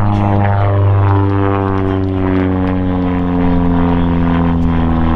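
Long-EZ's pusher propeller and engine droning as the plane flies by, the pitch falling slowly as it passes.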